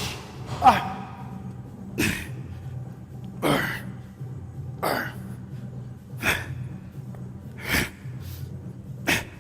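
A man's hard, forceful breaths while lifting dumbbells: a sharp exhale, once with a short grunt, about every one and a half seconds, one per rep, with a steady low hum underneath.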